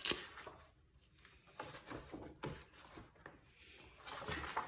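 Pages of a large hardcover book being handled and turned: a sharp tap at the start, then scattered soft paper rustles and ticks, and a quick run of page flips near the end.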